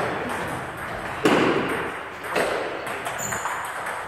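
Table tennis balls clicking off bats and tables in quick, irregular succession from several rallies at once, ringing in a large hall, with a few louder swells of noise about a second and two seconds in.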